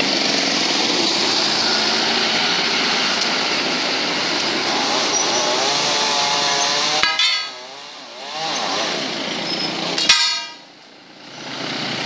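Chainsaw engine running at high revs, its pitch wavering shortly before it drops away sharply about seven seconds in; it picks up again, then drops away sharply a second time about ten seconds in before coming back.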